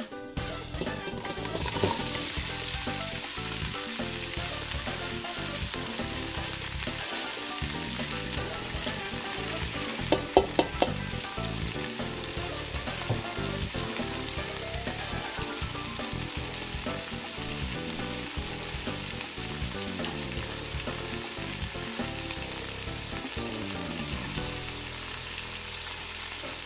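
Chopped onions, celery, peppers and carrots sizzling in hot oil in a large stainless stock pot. The sizzle swells up about two seconds in and then holds steady, with three sharp knocks about ten seconds in.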